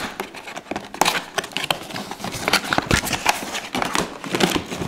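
Cardboard packaging box being handled and opened by hand: rustling and scraping with irregular clicks and taps.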